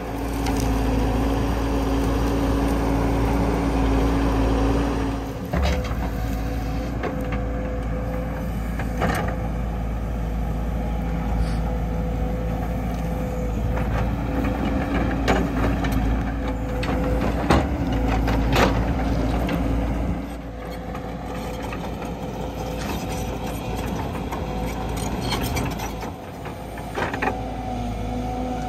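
JCB 145 tracked excavator's diesel engine running steadily under load, with scattered sharp knocks and cracks as the bucket rips out brush and digs soil. It runs a little quieter from about twenty seconds in.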